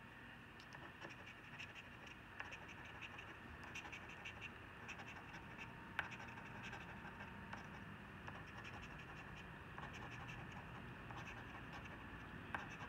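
A coin scraping the scratch-off coating off a paper lottery ticket: a faint, steady run of short scratching strokes, with a sharper click about halfway through and another near the end.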